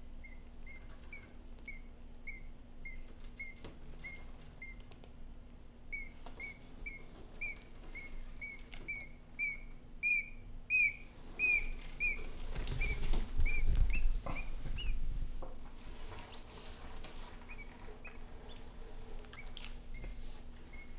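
Quail chick peeping over and over, short high peeps about two a second, growing louder about halfway through. A few seconds of scuffling and knocks follow, and near the end only a few scattered peeps remain.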